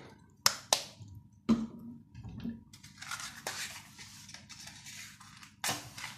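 Kitchen handling noises at a wok: a few sharp clicks and knocks early on, then a soft hiss for a couple of seconds, and another knock near the end.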